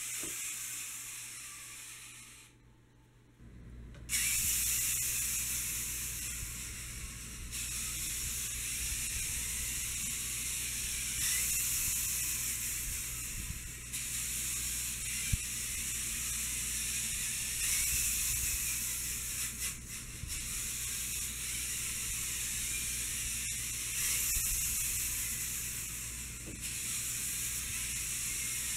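VEX robot's motors running as it drives and swings its arm, a steady hiss that steps up and down in level every few seconds. A quieter sound fades away over the first three seconds before the motors start.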